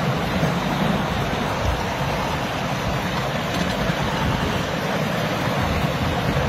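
7.25-inch gauge miniature railway train running steadily along the track, a continuous rumble and rush of wheels on rail heard from on board.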